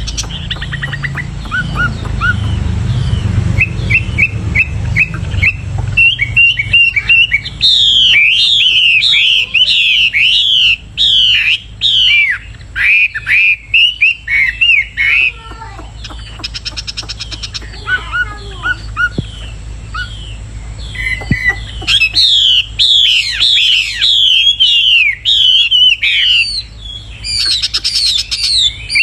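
Bird singing: fast runs of loud, sharply falling chirps repeated many times, with brief pauses about halfway through, over a steady low rumble that is stronger in the first few seconds.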